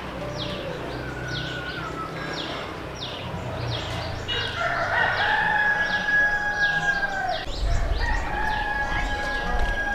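Roosters crowing, several long drawn-out crows one after another, the longest in the middle lasting nearly three seconds, over a small bird's high falling chirp repeated about twice a second. A low rumble comes in near the end.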